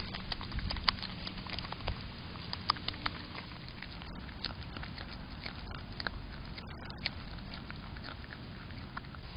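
Groundhog chewing close to the microphone: small scattered clicks and crunches, most frequent in the first three seconds and sparser after, over a steady low hiss.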